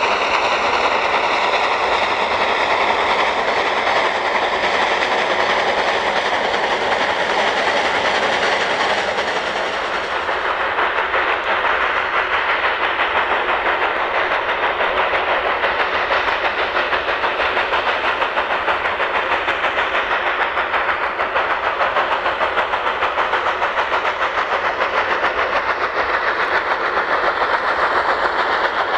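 NGG16 narrow-gauge Garratt steam locomotive working hard under load, its exhaust beating in a fast, even rhythm with the sound of the train rolling.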